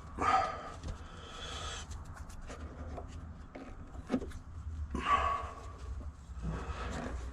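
Cloth wiping excess grease off the top of a shock absorber in several short rubbing strokes, over a steady low hum.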